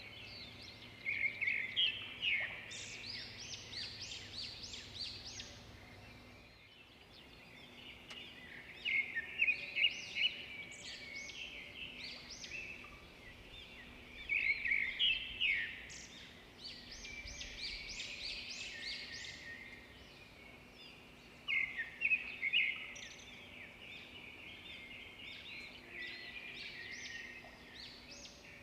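Songbirds chirping and singing, with a steady background chorus and loud bursts of rapid high notes every several seconds.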